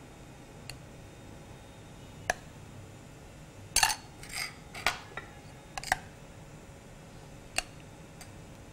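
Metal cutlery tapping against a serving plate and a bowl as yogurt is spread and spooned out: a scattered series of light clinks, louder and closer together around the middle.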